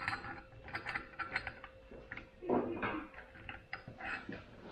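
Small metal clicks and clinks as locking-differential gears are fitted by hand into a differential carrier, with a brief scrape of metal on metal about two and a half seconds in.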